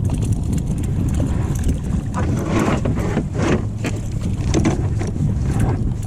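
Strong wind rumbling on the microphone, with a run of irregular water splashes and slaps between about two and five and a half seconds in.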